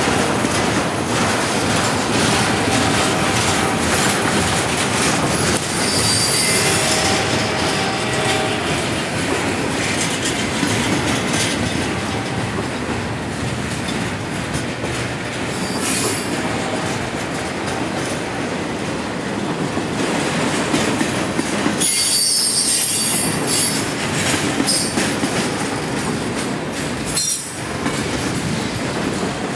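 Double-stack container well cars of a freight train rolling past: a steady rumble and clatter of steel wheels on the rails, with brief high-pitched wheel squeals several times.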